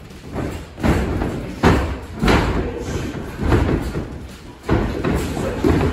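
Heavy thuds and slams on a wrestling ring, coming about once a second: bodies and feet hitting the ring's boards.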